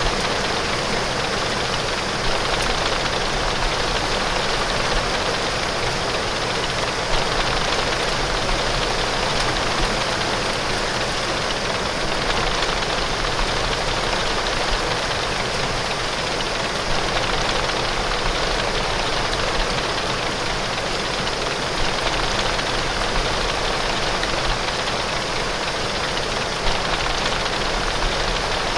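Heavy, steady rain falling on window glass, a dense even hiss with a constant low rumble underneath.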